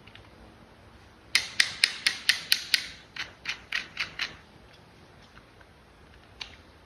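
A rapid run of about a dozen sharp clicks from toy vehicle parts being worked by hand, about four a second, loud at first and then weaker, with a single click near the end.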